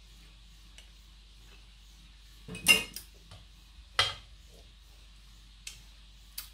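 Kitchen utensils clinking against a mixing bowl: two sharp clinks about two and a half and four seconds in, the first the louder, then two fainter taps near the end.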